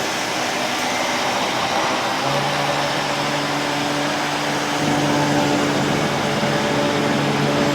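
Canister vacuum cleaner with a powered brush head running on a shag rug, a loud steady drone. Its low hum comes in about two seconds in and changes pitch a few times.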